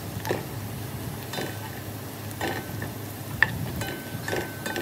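Sliced onions frying in oil in a nonstick pot, sizzling steadily, while a wooden spatula stirs them, scraping and knocking against the pot about once a second.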